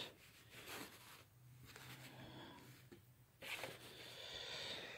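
Faint rustling and scraping of thick cardboard board-game pieces being slid into place across a cloth-covered table.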